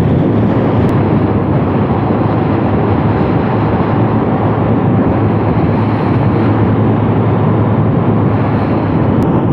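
Yamaha Nouvo LC135 scooter's single-cylinder four-stroke engine running steadily at a cruise of about 70 km/h, mixed with a steady rush of wind and road noise.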